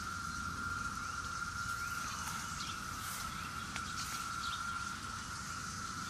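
Chorus of periodical cicadas: a steady, unbroken high-pitched drone from many males singing together.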